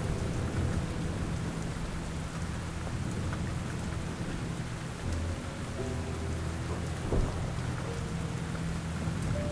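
Steady rain with a low rumble of thunder, and one brief, louder crack about seven seconds in.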